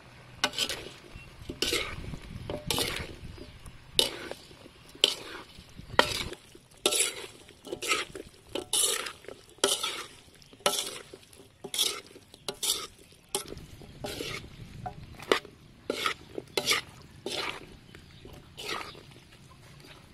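Metal spatula stir-frying vegetables in a large wok, scraping and clinking against the pan about once a second.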